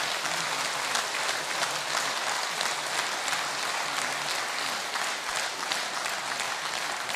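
Audience applauding steadily: many hands clapping in a dense, even patter.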